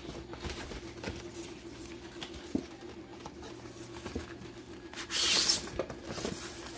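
Crumpled kraft packing paper and a styrofoam box rustling and scraping against cardboard as things are handled in a shipping box, with small clicks and a louder crackling rustle about five seconds in. A steady low hum runs underneath.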